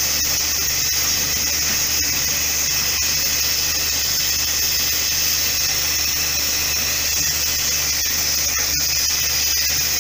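Steam hissing steadily from a WP-class steam locomotive: one loud, high, unbroken hiss.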